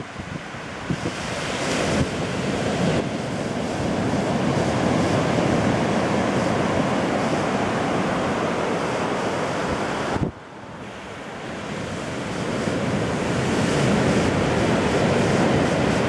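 Ocean surf breaking and washing up the beach in a steady roar, with wind buffeting the microphone. About ten seconds in the sound drops away suddenly, then builds back up.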